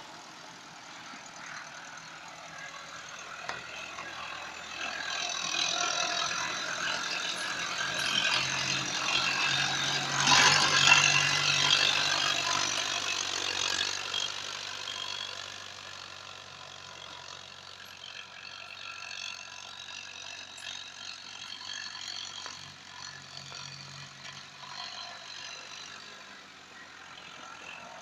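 Massey Ferguson 285 S 4x4 tractor's diesel engine running steadily as it pulls a rear-mounted blade through manure-strewn soil. It grows louder as the tractor passes close by about ten seconds in, then fades as it moves away.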